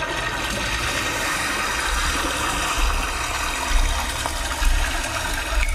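Rushing, gushing water sound effect played over loudspeakers, a steady dense wash that starts abruptly, with a deep low rumble pulsing irregularly underneath.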